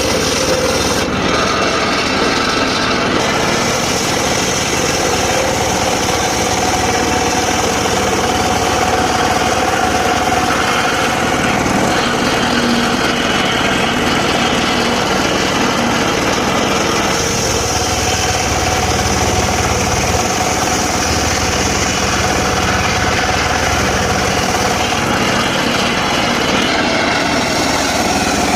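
Engine-driven mobile circular saw running steadily while cutting dry teak wood.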